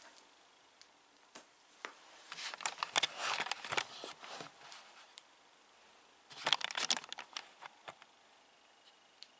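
Plastic wrap and sellotape on a cardboard box crinkling and tearing as it is pulled at, in two bursts about two and six seconds in, with scattered clicks.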